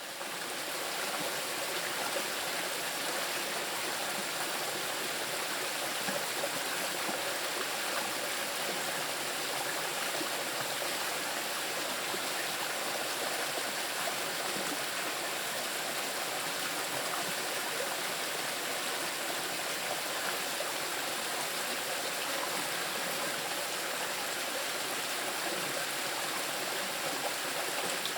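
Small river rushing steadily over rocks, a continuous even wash of flowing water.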